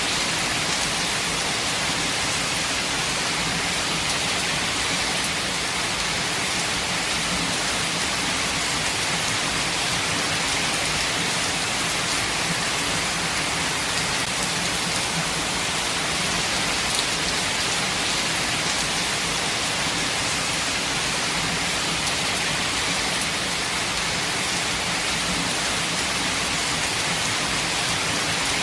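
Steady heavy rain falling on surfaces, an even hiss with scattered drop ticks.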